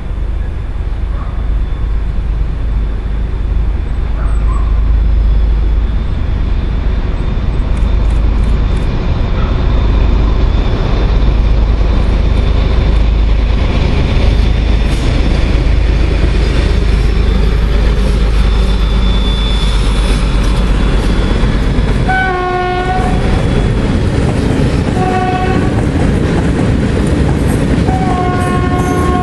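An SU46 and an ST43 diesel locomotive hauling a freight train of silo wagons past, with a deep engine rumble and wagon wheels clattering over the rails. A locomotive horn sounds three times: two short blasts, then a longer one near the end.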